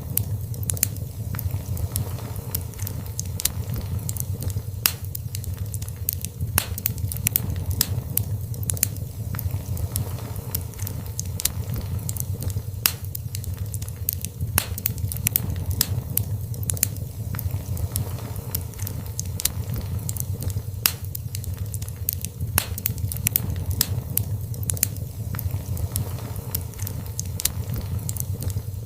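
Fire in a fireplace crackling, with frequent sharp, irregular pops and snaps over a steady low rumble.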